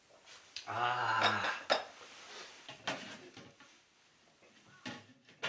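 A small ceramic cup and dishes clinking a few times as they are set down on a wooden board. About a second in there is a man's short, low hum.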